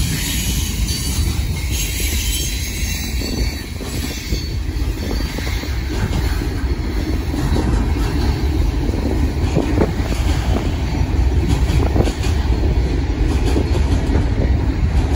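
Freight cars rolling past at close range: a steady rumble of steel wheels on the rails, with a few clicks as wheels cross rail joints.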